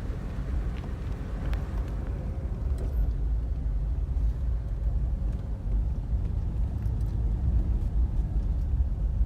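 A car driving along a road: a steady low rumble of engine and tyres, growing a little louder a few seconds in.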